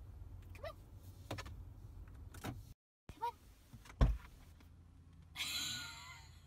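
Low steady hum of a car's cabin, with a few faint short squeaks, a sharp thump about four seconds in, and a hissing whirr lasting about a second near the end.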